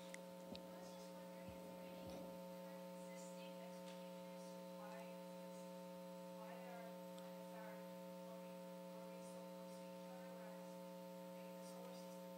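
Steady electrical hum at several fixed pitches, with the faint, distant voice of an audience member asking a question away from the microphone.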